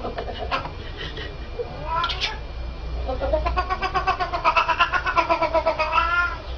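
Cat yowling while being held up and jostled in a man's hands. A short rising call comes about two seconds in, then a long wavering yowl for about three seconds that rises and falls in pitch, with a fast stuttering pulse running through it.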